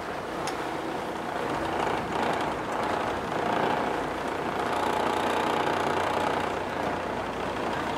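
Tour boat's engine running steadily under way, with a continuous drone that grows louder about two seconds in.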